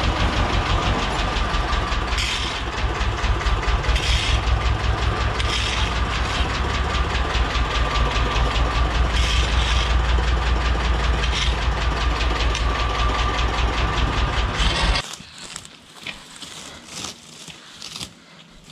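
Tractor's diesel engine running steadily with a low, even throb, then shut off suddenly about fifteen seconds in, leaving only faint knocks.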